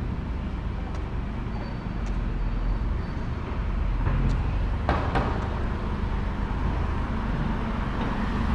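Street traffic noise: a vehicle engine running low and steady, with one sharp knock about five seconds in.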